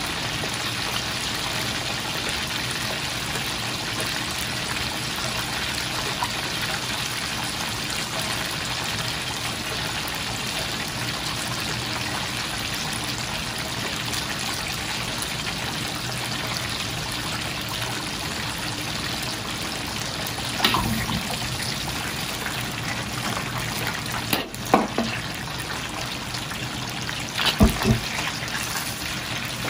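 Hot oil in a wok bubbling and sizzling steadily as lobster, Dungeness crab and chicken-wing pieces deep-fry. A few sharp knocks come in the last third, the last as a wire skimmer goes into the wok.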